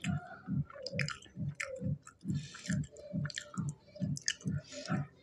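A man chewing food with his mouth close to a clip-on microphone: a steady rhythm of about three chews a second, with wet clicks of the mouth between them.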